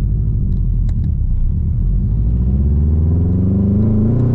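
Subaru WRX's turbocharged flat-four engine accelerating hard, heard from inside the cabin, its revs climbing steadily from about a second in.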